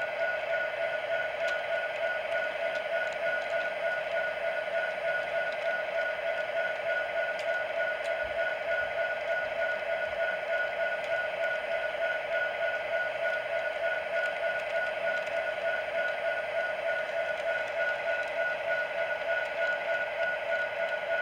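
Model freight train rolling past on the layout track: a steady electric motor whine with an even, regular pulsing as the cars roll by.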